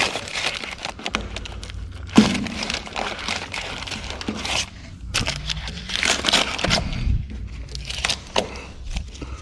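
Masking tape being peeled off a car body and crumpled up: irregular tearing, crackling and crinkling rustles.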